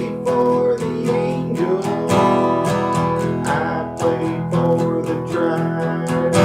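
Acoustic guitar strumming chords, the strokes coming at a steady pace.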